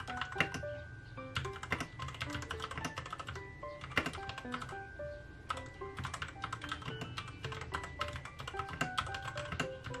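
Typing on a Royal Kludge RK61 mechanical keyboard: quick runs of key presses as a sentence is typed, over light background music with short chiming notes.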